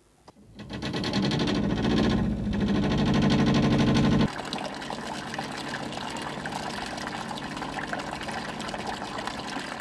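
Yanmar inboard marine diesel engine running, close and loud. About four seconds in this gives way suddenly to the quieter splashing of engine cooling water jetting from the outlet in the hull side into the sea.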